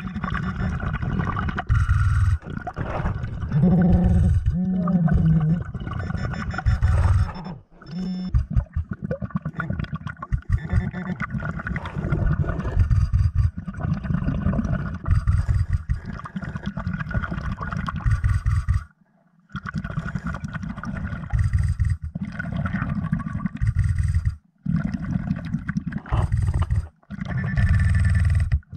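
Underwater sound of a diver's breathing: exhaled bubbles rumble in stretches a few seconds long, with short breaks between breaths.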